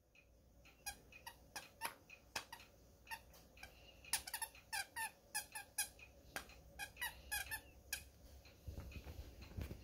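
A puppy biting and chewing a plush squeaky toy, squeezing out many short squeaks in quick, irregular runs. Near the end the squeaks give way to a low rustle.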